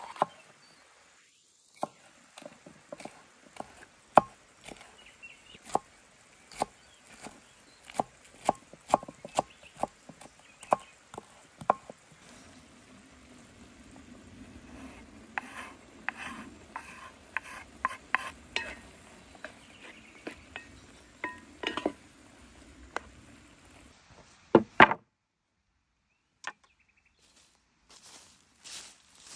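Chef's knife chopping a green bell pepper on a wooden cutting board: sharp knocks about twice a second. Later come more knocks over a low steady hiss as the chopped pepper is pushed off the board into a pot of simmering tomatoes.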